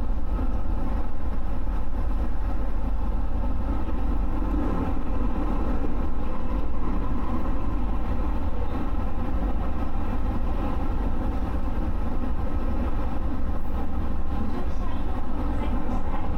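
JR West 221 series electric train running steadily on the line: a constant low rumble of wheels on rail with faint steady tones over it.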